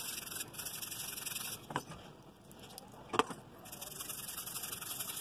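Toothbrush scrubbing a paste of detergent and baking soda into a grease stain on linen fabric: a fast, scratchy brushing that pauses about a second and a half in and resumes after about two seconds, with two short knocks, the louder one about three seconds in.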